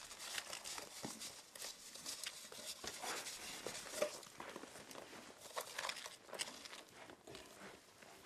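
A horse eating feed from a bowl: faint, irregular crunching and rustling as its muzzle works through the feed and hay.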